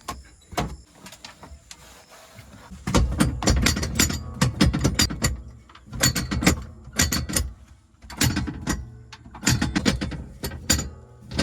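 Backhoe loader at work: irregular clanks and knocks over a low rumble, getting much louder about three seconds in.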